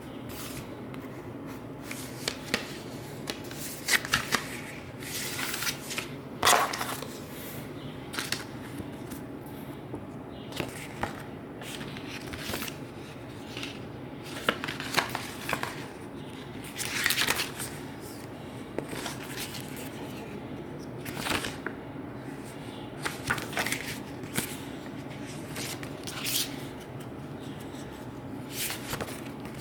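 Headphone packaging being handled and opened: irregular rustles, scrapes and taps of cardboard and paper, one every second or two, over a steady low hum.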